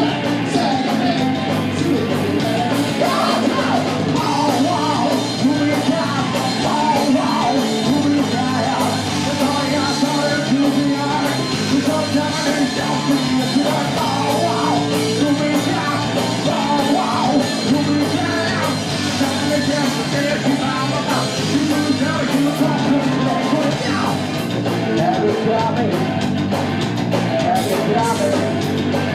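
Rock band playing live, with electric guitars, bass and drums under a singer's vocals, at a steady loud level.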